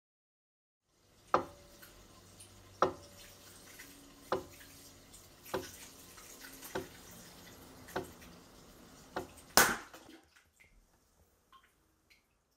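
Water running in a thin stream into a plastic bucket as a load, with a sharp click about every second and a half and a louder one near the end, after which the flow stops.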